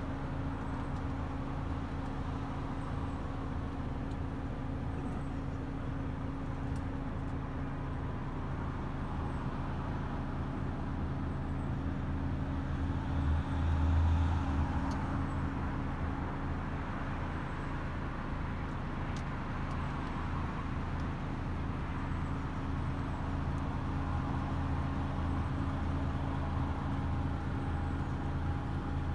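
DAF XF510's PACCAR MX-13 straight-six diesel idling steadily, heard from inside the cab, with a brief louder low swell about halfway through.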